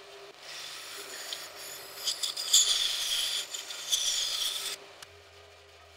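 Bandsaw cutting through a wooden handle blank: the blade's cutting noise starts about half a second in and stops near five seconds, over the steady hum of the running saw.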